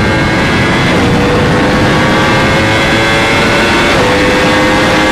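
Yamaha R1M's crossplane inline-four through a new aftermarket exhaust, pulling under load with the pitch climbing slowly and dropping at upshifts about a second in and again near four seconds.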